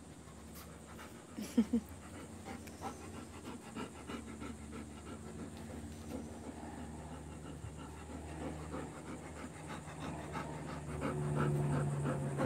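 Bernese mountain dog panting close to the microphone, a steady rhythmic panting that grows louder toward the end. There are two brief louder sounds about one and a half seconds in.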